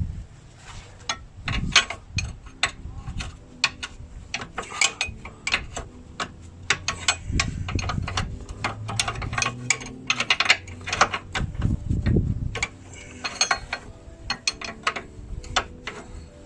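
Socket ratchet clicking in quick irregular runs, with metal knocks and clinks, as a stubborn lower control arm bolt is worked loose.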